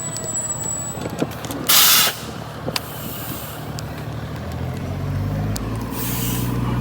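A fire truck's air brakes letting out a short loud hiss about two seconds in and again near the end, while its engine runs steadily and grows louder from about five seconds in.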